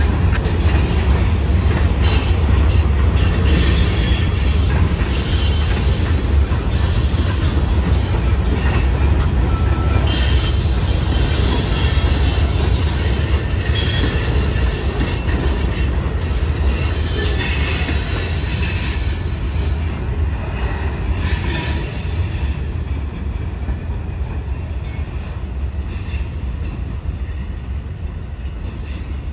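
Freight train of loaded centerbeam lumber flatcars rolling past with a deep, steady rumble and high-pitched wheel squeal. The squeal thins out after about twenty seconds, and the rumble slowly fades as the train moves away.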